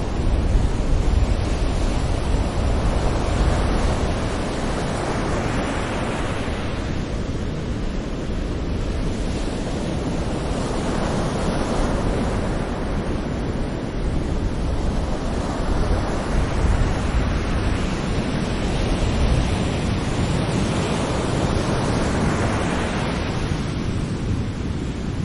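Small sea waves breaking on a shore, the hiss of each wave swelling and fading about every five or six seconds over a steady wash of surf.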